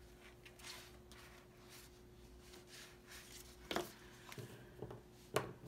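Quiet handling of sticker sheets and paper: a soft rustle, then a few light taps and clicks, the sharpest two near the middle and near the end. A faint steady hum sits underneath.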